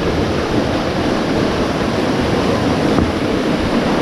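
Steady, loud rush of fast-flowing water.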